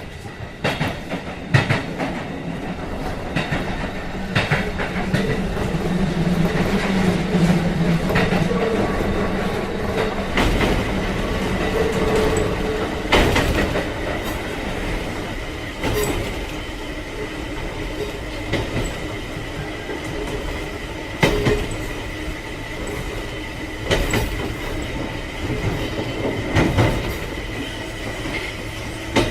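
Train sound effect: a railcar running, with wheels clacking over rail joints in sharp, irregularly spaced knocks over a steady running noise and a faint high whine.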